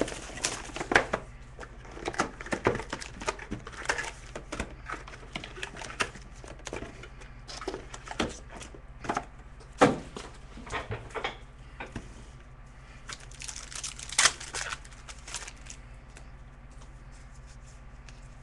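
Trading card packs being opened by hand: wrappers tearing and crinkling, with scattered sharp clicks and rustles of cards and cardboard being handled. A longer stretch of crinkling comes about three quarters of the way in.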